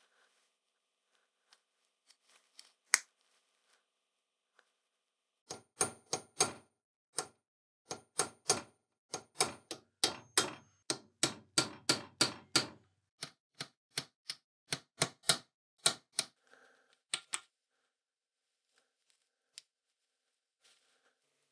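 A series of light hammer taps on a pointed punch set against the end of a threaded stud in a small steel plate, about two or three taps a second with a short metallic ring, starting a few seconds in and stopping after about twelve seconds.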